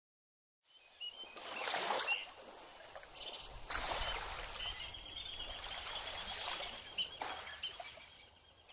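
Faint outdoor ambience: an even, rushing wash like running water, with a few thin high calls over it, starting about a second in.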